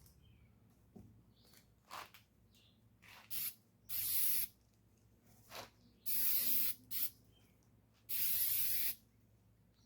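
Aerosol can of brake cleaner spraying in a series of bursts, three of them lasting nearly a second each, to strip the anti-rust coating off a new camshaft.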